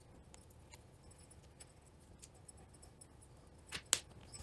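Quiet hand-handling of a rope line at the end of a metal whisker pole: faint scattered ticks, then two sharp clicks near the end.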